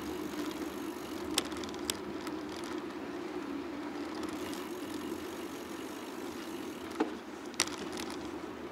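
Steady rolling noise of a bicycle being ridden on a road, with a low wavering hum and a few sharp clicks or rattles, twice early and twice near the end.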